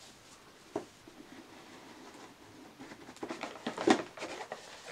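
A black cardboard gift box being opened by hand: a light knock about a second in, then rustling and scraping of the lid and packaging, with the loudest bump near the end.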